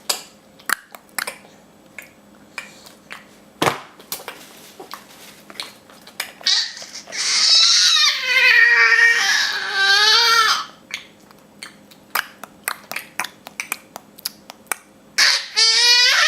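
A baby making repeated tongue clicks with his mouth, irregular sharp clicks throughout. About halfway through he lets out a long, wavering high-pitched babbling squeal, and starts another near the end.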